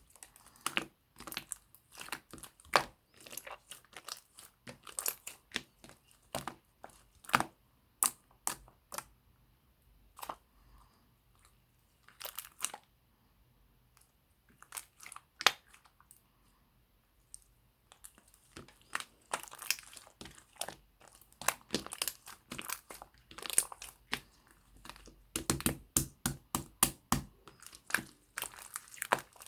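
Clear slime with small crunchy add-ins being squeezed and pressed by hand, making irregular sharp crackling clicks and pops. The pops thin out in the middle and come thick and fast near the end.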